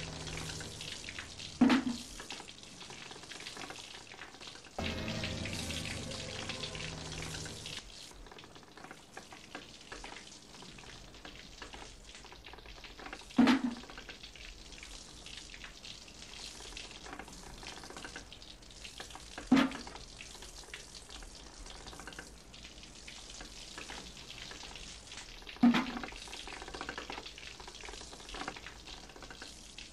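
A steady crackling hiss, with a heavy thump about every six seconds (four in all) and a held low chord briefly near the start and again from about five to eight seconds in.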